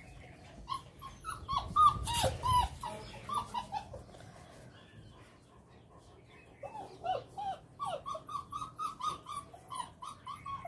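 Great Dane puppies whimpering in runs of short, high, squeaky whines while nursing under their mother, with a brief loud rustle about two seconds in.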